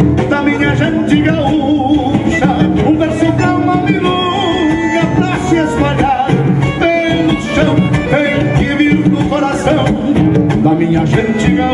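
Live gaúcho folk music: a man singing into a microphone over band accompaniment, unbroken throughout.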